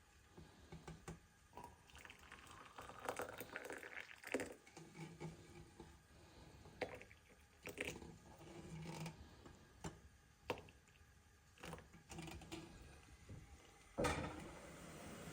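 Faint, scattered small clicks and knocks with short stretches of rustling, as of objects being handled; a louder rustling stretch starts near the end.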